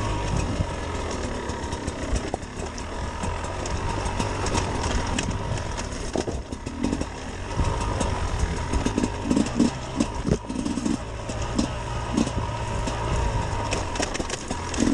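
Sherco SE 300 Factory's single-cylinder two-stroke enduro engine running under changing throttle on rough singletrack. Frequent sharp clicks and knocks are heard throughout.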